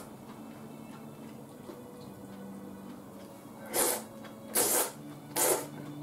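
A person slurping udon noodles from a bowl: three short, loud slurps about a second apart, starting a little under four seconds in, over a faint steady hum.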